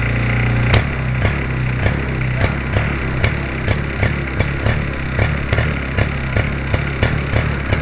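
Converted two-stroke chainsaw engine in a giant-scale RC Piper Cub running steadily at a low, even speed just after starting, with sharp ticks about two to three times a second.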